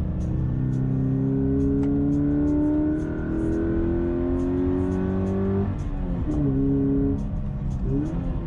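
Toyota 86's FA20 2.0-litre flat-four engine pulling uphill under load, heard from inside the cabin. Its pitch rises steadily for about five and a half seconds, then falls in a quick step about six seconds in and again near the end.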